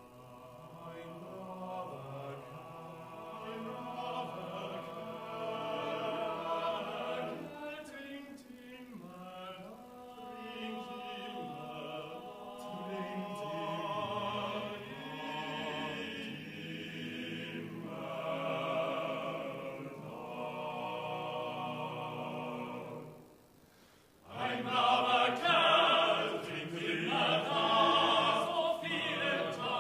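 Men's choir of about eight voices singing a drinking song a cappella, in held, slowly changing chords. The singing breaks off for a moment about 23 seconds in, then comes back louder.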